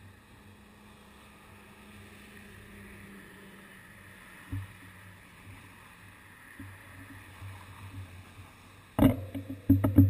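Faint, steady, muffled rumble of street traffic with a low hum, heard through the camera's waterproof housing. About nine seconds in comes a sudden loud knock, followed near the end by a rapid series of sharp clicks or taps.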